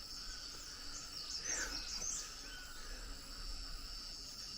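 Forest ambience: a steady, high-pitched insect drone, with a small bird giving a quick run of chirps about one and a half seconds in.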